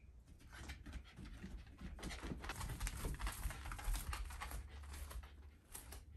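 Footsteps on tatami mats: a shiba inu's paws and a person walking behind it, a quick run of soft steps and light clicks that builds up about a second in, over a low handling rumble.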